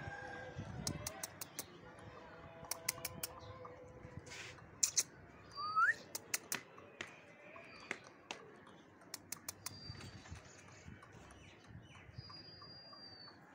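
Siberian husky puppies suckling from their mother, with many scattered small wet clicks and smacks. A few short high bird chirps sound in the background, one rising about six seconds in.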